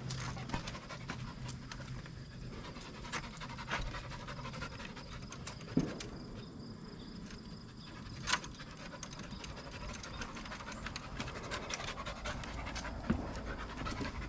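Aussiedoodle puppy panting steadily, with scattered light clicks and two sharper knocks, one about six seconds in and one about eight seconds in.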